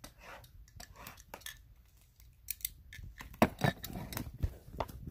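Plastic wrap and cardboard being crinkled, snipped and torn open on a trading-card box: quick crisp rustles and clicks, sparse at first and busier and louder from about three seconds in.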